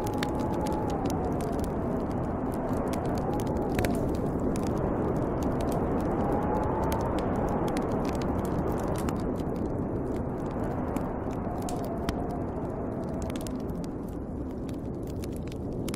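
Snowstorm wind blowing hard, with a thin howl that rises and falls in pitch, while a wood fire crackles and pops throughout.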